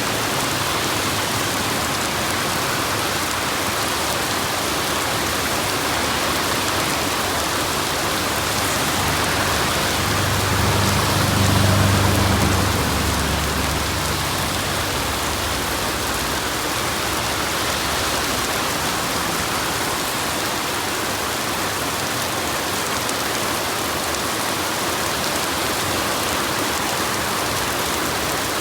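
Steady rain falling, a continuous even hiss. Around ten seconds in, a low rumble swells for a few seconds and fades back under the rain.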